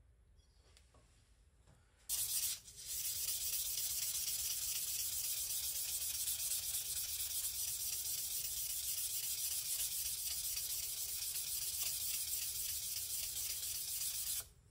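Sandpaper rubbed by hand over the bevel of a deba knife blade to polish it: a steady, hissing scratch that starts about two seconds in, breaks off for a moment, then runs on and stops just before the end.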